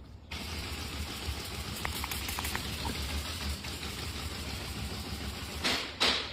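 A small motor running steadily with a low hum and a few faint clicks, then a short rasping stroke near the end.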